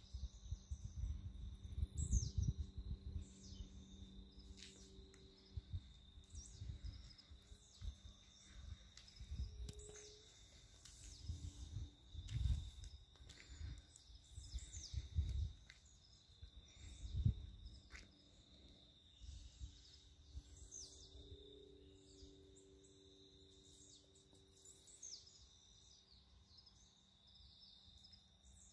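Many birds chirping and calling in short, scattered notes, over a faint steady high whine. Irregular low rumbles on the microphone, heaviest in the first half, are the loudest sound.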